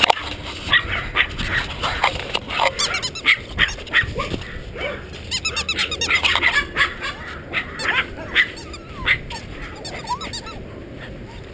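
Golden retriever puppies yipping and whining, many short high yelps in quick succession, with gliding whimpers in the second half.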